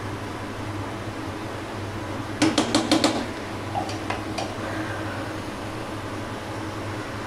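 Wooden spatula knocked against a nonstick wok about five times in quick succession, then two or three lighter knocks a second later, over a steady low hum.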